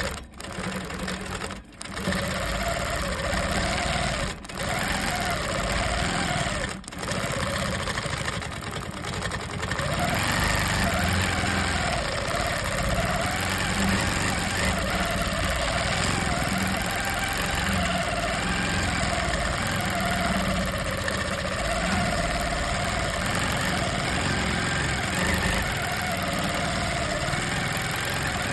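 Longarm quilting machine stitching free-motion. Its motor hum rises and falls in pitch as the stitching speed changes. It drops out briefly four times in the first seven seconds, then runs steadily.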